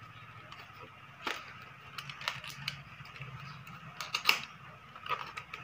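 Cardboard-and-plastic earphone blister pack being pried open by hand: irregular sharp clicks and crinkles of the packaging, thickest about four seconds in.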